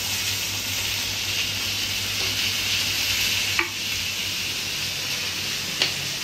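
Chopped tomatoes, green chillies and coriander sizzling steadily in hot oil in a steel karahi, with two sharp clicks about three and a half and six seconds in.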